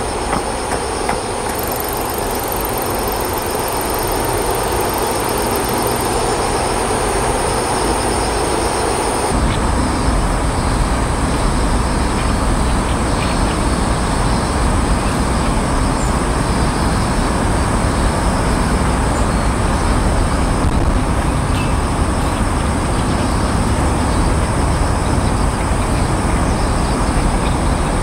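Steady rumble of distant vehicles, with a high steady hum above it. About nine seconds in, the sound changes abruptly to a deeper, even low rumble.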